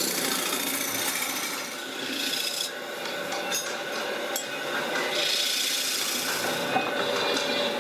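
Hand-held turning chisel scraping across a spinning wooden disc on a belt-driven lathe: a coarse rasping hiss in two cuts, the second starting about five seconds in, over the steady hum of the lathe.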